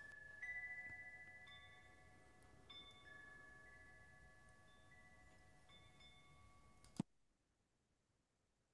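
Faint wind chime: several clear high notes struck one after another, each ringing on, until a sharp click cuts it off about seven seconds in.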